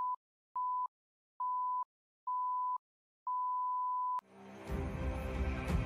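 Film-leader countdown beeps: five beeps at one steady pitch, about one a second, the last held for about a second. Music comes in right after the last beep, about four seconds in.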